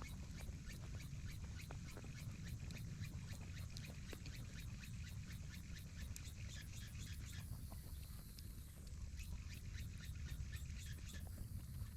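Wood campfire crackling: a dense, irregular run of small pops and snaps over a steady low rumble, with a brief hiss about eight seconds in.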